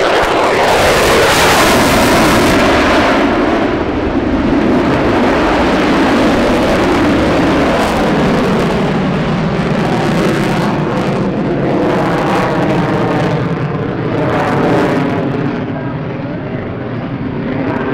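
Jet noise from an F-22 Raptor's twin F119 turbofans as the fighter passes close by, loudest and falling in pitch as it goes past, then a steady, loud, crackling rumble as it climbs away, swelling again near the end.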